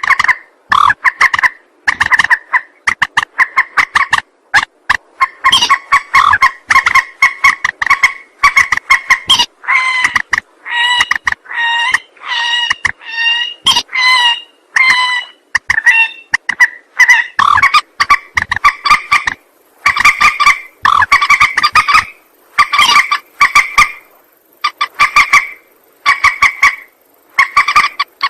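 Recorded lure calls of a mandar, a rail of the moorhen/swamphen kind: loud, pitched calls repeated in quick succession, about one or two a second, with short gaps between bouts.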